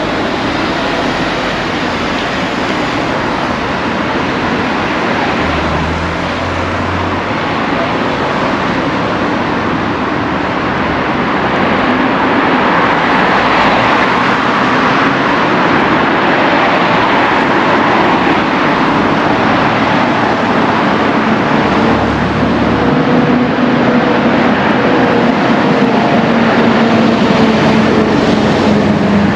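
Steady road traffic noise of vehicles passing, swelling around the middle, with a low engine hum coming in near the end.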